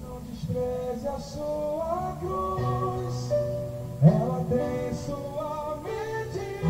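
Live band music with a sung melody: a voice holding long notes that slide from pitch to pitch over the band.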